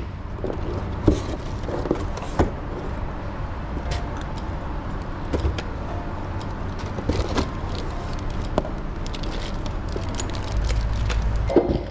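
Handling noise as a trolling motor is taken out of its cardboard box and plastic wrap: scattered clicks and knocks of the shaft and mount, over a steady low rumble.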